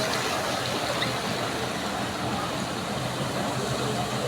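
Rushing floodwater, a steady even noise.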